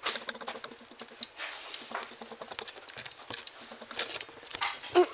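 American Bulldog's paws and claws scrabbling and scuffing on carpet as it pounces about, with many small clicks and knocks and a louder thump near the end.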